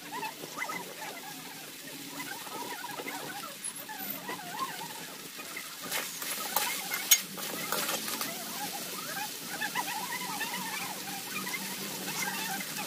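Metal spatula scraping and clinking against a metal kadai as chicken and fried potatoes are stirred, with a few sharp clinks about six to seven seconds in. Steady chirping runs in the background.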